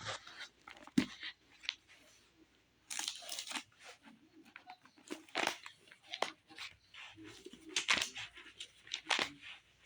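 Thin Bible pages being leafed through: irregular crackling and rustling of paper, in short clusters.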